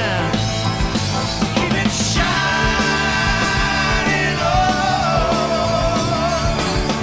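Live rock band playing: electric guitar, bass and drums, with the drummer singing lead. A held, wavering note carries through the second half.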